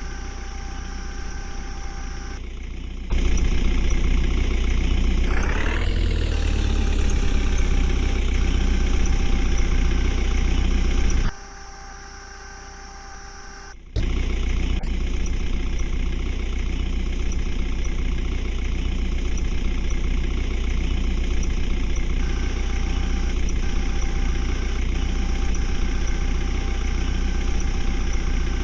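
Diesel engine of a JCB 3DX backhoe loader running steadily, revving up briefly about six seconds in and falling back to idle. The sound jumps abruptly in level a few times, dropping much quieter for a few seconds near the middle.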